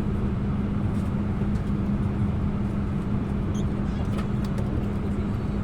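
Steady cabin hum of an Airbus A321 at the gate: the air-conditioning airflow with a constant low drone, and a few faint ticks over it.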